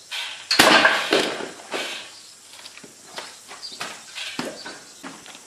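A loud knock about half a second in, followed by a string of smaller knocks and cracks that fade away.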